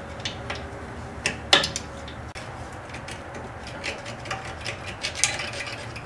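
Flat-blade screwdriver prying at the steel wire anti-rattle spring clip on a Mazda 3 rear brake caliper: scattered light metallic clicks and scrapes, the loudest about one and a half seconds in.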